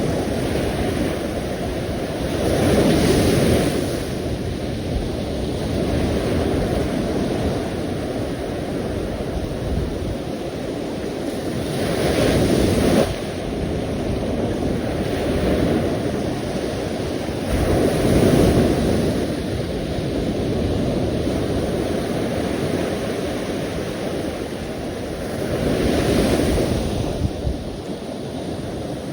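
Sea surf: a continuous wash of water with a wave breaking and swelling louder about four times, every six to nine seconds.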